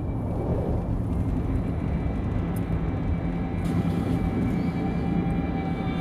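Steady low rumble of a car driving, heard from inside the cabin, with a faint sustained hum of steady tones over it.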